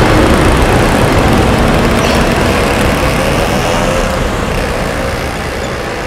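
Dense street traffic, cars and buses running in a steady wash of engine and road noise that slowly fades out towards the end.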